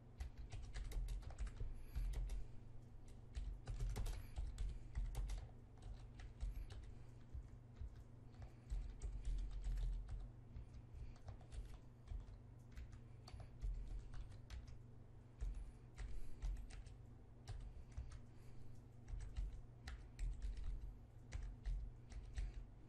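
Typing on a computer keyboard: quick runs of keystrokes broken by short pauses, over a low steady hum.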